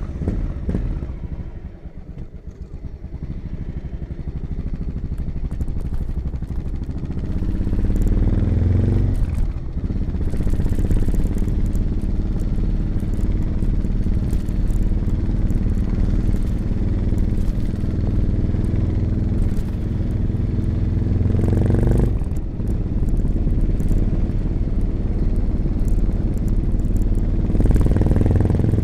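1986 Honda XL600RM single-cylinder four-stroke engine through an XRacing exhaust with dB killer, running under way: quieter for the first several seconds, then louder from about eight seconds in, with brief breaks in the engine note around nine and twenty-two seconds in.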